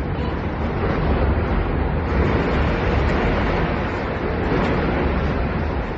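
Wind buffeting the microphone over a steady rush of churned water and a heavy low rumble from a large container ship ploughing along the quay into gantry cranes.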